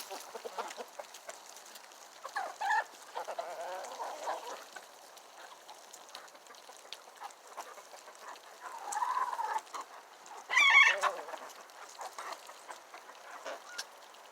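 Chickens clucking and calling in scattered short bursts, with one loud squawk about ten and a half seconds in.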